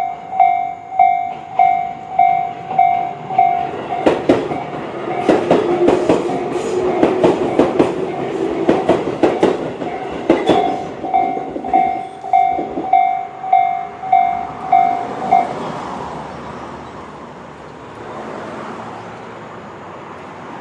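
Japanese level-crossing electronic alarm bell, the slow-tempo Tobu 'C' tone, ringing at about 1.7 strikes a second. About 4 s in, a Tobu 20400-series train passes over the crossing with a rapid run of wheel clacks over the rail joints. The bell keeps ringing after the train clears and stops about 15 s in, leaving the train's rumble fading away.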